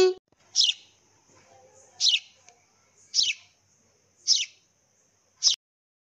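House sparrow chirping: five short, high chirps spaced about a second apart.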